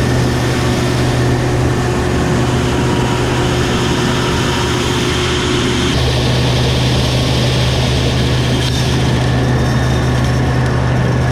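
Tractor's diesel engine running steadily under load, with a slight change in tone about six seconds in.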